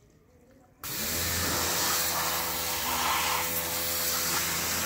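Pressure washer starting suddenly about a second in: its motor and pump hum steadily under the loud hiss of the high-pressure water jet spraying the car's door sill.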